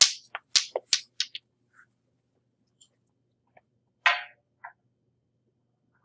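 A quick run of sharp clicks and knocks, seven or eight in the first second and a half, then one louder click about four seconds in and a smaller one just after.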